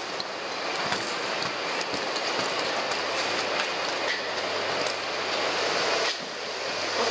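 Steady rumbling clatter of an escalator's moving steps and a busy hall, with footsteps on a hard floor as the wearer walks off it. A low steady hum comes in about three seconds in.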